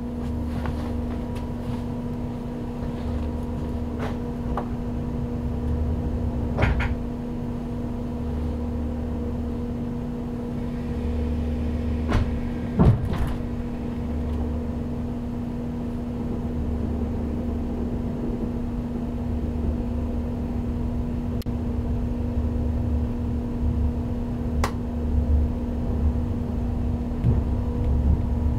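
Interior sound of a JNR 485-series electric train: a steady electrical hum with a low, uneven rumble underneath, and a few sharp clicks and knocks, the loudest about halfway through, as the train stands and then slowly pulls away from the station.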